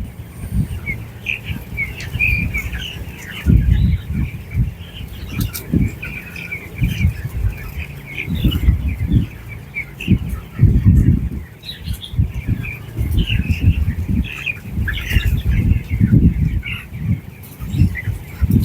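A flock of broiler chickens chirping and peeping steadily, many short calls overlapping. Loud, irregular low rumbles come and go throughout and are the loudest sound.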